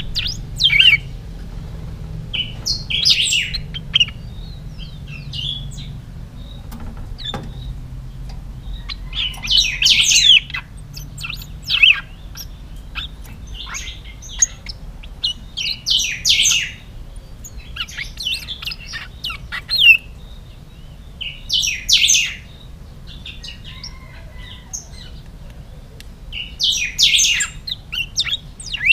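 A caged, hand-reared pica hueso singing: loud, short whistled phrases repeated every few seconds, fairly strong and clear.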